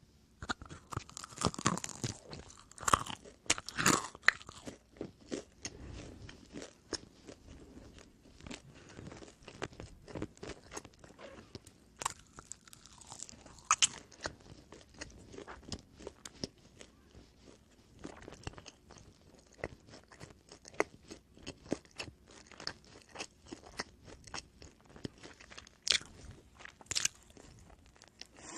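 Close-miked biting and chewing of oven-baked pizza bread, the crust crunching and crackling with each bite. The loudest bites come in the first few seconds, followed by steadier chewing.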